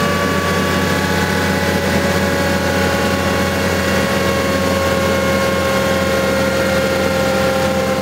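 Honda CBR650R's inline-four engine running steadily on a dyno, its pitch drifting slowly down.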